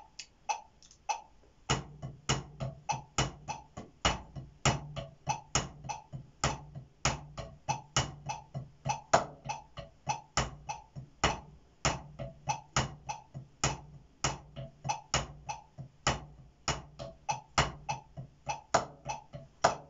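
Wooden drumsticks playing a paradiddle-based accent exercise on two practice pads to a metronome click. Accented strokes stand out from quieter taps in an even, repeating pattern, the playing proper starting about two seconds in.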